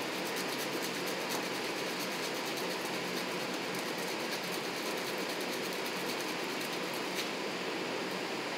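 Steady mechanical rush and hum, with a faint rapid ticking over it that stops about seven seconds in.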